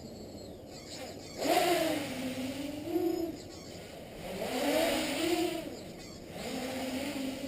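Leap 3D quadcopter's electric motors and propellers whining, the pitch rising and falling with throttle changes, with louder surges of rushing propeller noise about a second and a half in and again around five seconds in.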